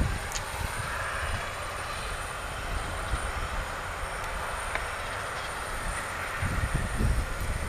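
Twin-engine turboprop taxiing, its engines and propellers giving a steady drone with a thin high whine. Gusts of low rumble come in about three-quarters of the way through.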